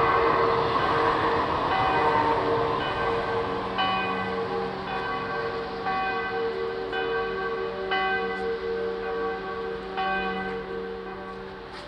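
Several church bells ringing in an uneven peal, struck again and again, each strike leaving a long ringing tone. A rushing noise at the start fades away, and the ringing grows fainter near the end.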